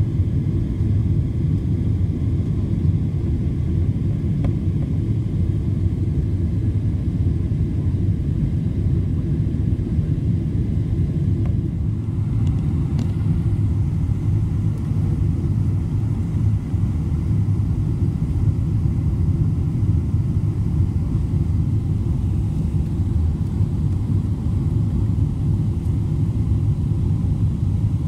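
Steady low rumble of an airliner's engines and airflow heard inside the passenger cabin, as the plane descends on approach to land.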